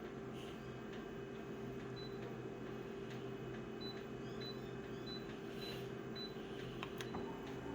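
Quiet room tone: a steady low hum, with a few faint short beeps through the middle and a few faint clicks near the end.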